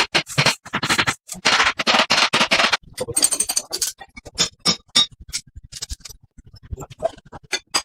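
Workshop work on a dynamo's parts: repeated short bursts of scraping and rubbing for about three seconds, then a brief high-pitched grinding or whirring burst, then a run of irregular sharp clicks and taps.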